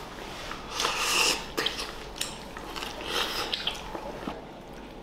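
A man biting and chewing a mouthful of steamed garlic pork rib and rice, with wet mouth sounds and small clicks, loudest about a second in and again about three seconds in.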